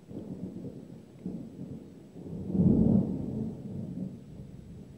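Thunder rumbling in rolling swells, growing to its loudest about two and a half seconds in and then fading away.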